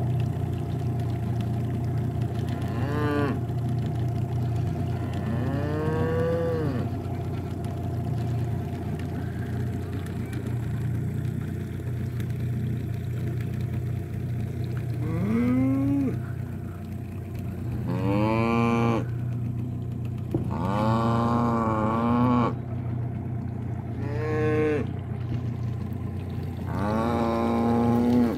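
Dairy cows mooing: about seven drawn-out calls at irregular spacing, several of them rising and then falling in pitch, the longest lasting about two seconds. A steady low hum runs underneath.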